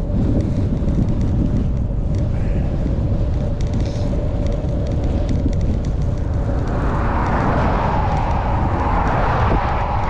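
Wind rumbling on the microphone of a moving bicycle, with a car's tyre hiss on a wet road swelling from about two-thirds of the way in as it passes.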